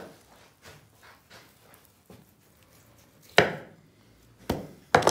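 Three sharp knocks on a wooden work surface, like chopping or tools set down on a board. The loudest comes about three and a half seconds in and two more follow close together near the end, with faint small clicks and handling noises before them.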